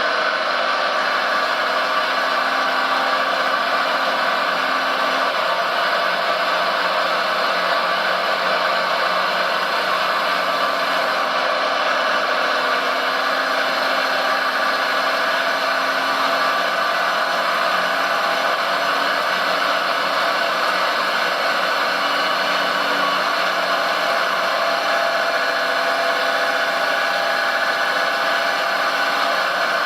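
Small electric motors of radio-controlled model vehicles whirring steadily.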